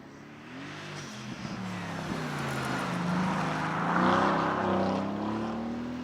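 A car's engine under hard acceleration running up a hillclimb course and passing close by. The engine note rises and drops through gear changes, is loudest about four seconds in, then fades as the car moves away.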